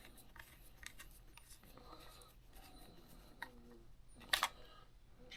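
Faint clicks and rubbing of a cheap plastic RC transmitter being handled, with one sharper click about four seconds in.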